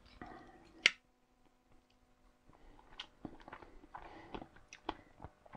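Quiet eating sounds: a knife and fork working on a plate of roast pork ribs with crisp crackling skin, with scattered small crunches and clicks and one sharp clink of cutlery about a second in. Chewing of the crackling comes in between.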